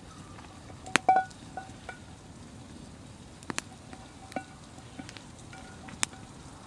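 Wood campfire crackling, with sharp pops about a second in and again near the middle and end, over a faint hiss. Short metallic pings and clinks from an aluminium frying pan as it is held and tilted over the fire to spread linseed oil.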